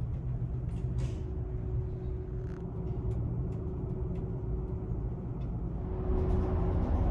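Steady low rumble and hum of a car ferry's engines and ventilation, heard from inside the ship, with a few faint clicks; it grows louder and brighter about six seconds in.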